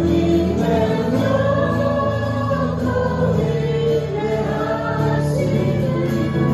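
A group of voices singing a worship song together in held, sustained notes over steady instrumental accompaniment.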